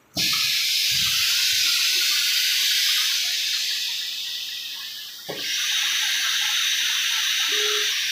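Compressed air hissing from a PVC pipe coupler-forming machine's pneumatics: a loud hiss starts abruptly, fades away over a couple of seconds, then after a knock about five seconds in comes back and holds steady.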